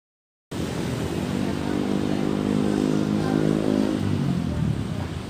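A motor vehicle's engine passing close by, cutting in suddenly about half a second in. Its pitch drops as it goes past near the end, leaving traffic noise.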